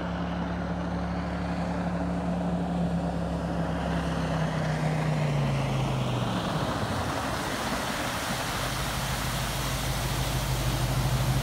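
Jet boat running at speed as it passes close by, with the hiss of its spray growing louder. The engine note drops about halfway through, then holds steady.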